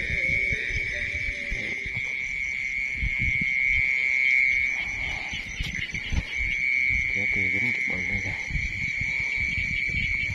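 Field insects trilling in one steady, high-pitched chorus, with scattered low thumps and rustles underneath.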